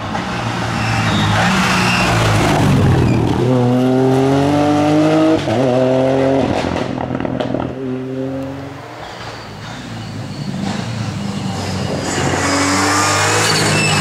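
Ford Fiesta Rally4's turbocharged three-cylinder engine pulling hard past at full throttle, its pitch rising, dipping at a gear change and rising again. It then fades away, and near the end it builds up again as the car comes closer.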